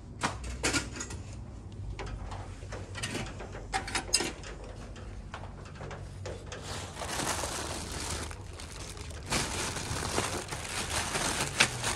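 Plastic bags of small toys rustling and crinkling as they are handled, with scattered light clicks and knocks. The rustling is heaviest in two stretches over the second half.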